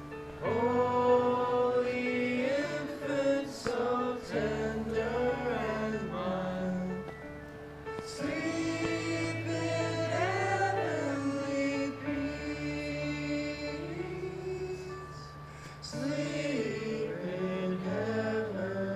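A small group of carolers singing a Christmas carol together in phrases, over an accompaniment of held low notes.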